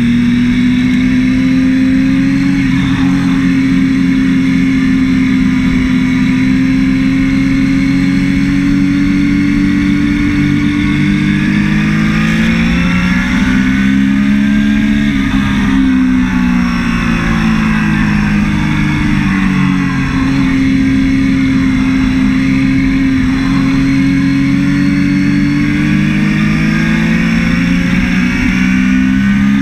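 Triumph Daytona 675's three-cylinder engine, heard from on board, running hard at a high, mostly steady pitch, with its note dipping and rising a couple of times around halfway through as the rider works the throttle.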